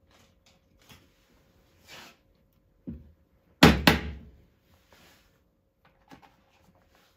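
A hammer tapping a glue-coated wooden cap into a screw hole in the side of a wooden bench: a light knock about three seconds in, then two sharp strikes in quick succession. Small handling knocks come before and after.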